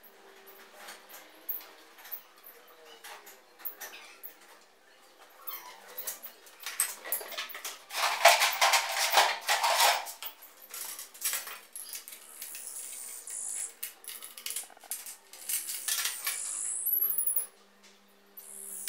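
Metal tools and grinding discs clicking and clattering on a steel worktable as an angle grinder's disc is changed by hand, the grinder not running. There is a longer burst of rattling and scraping about eight seconds in.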